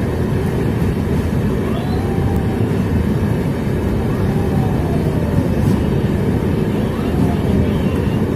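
Indian Railways train running along the track: a steady, loud rumble of wheels on rails.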